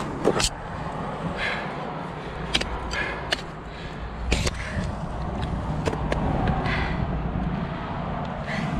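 Ice axe picks striking into waterfall ice: scattered sharp chops and knocks, two close together just after the start and a strong one about four and a half seconds in, over a steady low rush of noise.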